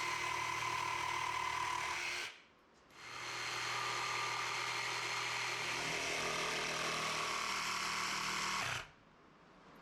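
Jigsaw cutting a fiberglass-faced wooden panel, running steadily. It stops a little after two seconds in, starts again, and stops near the end.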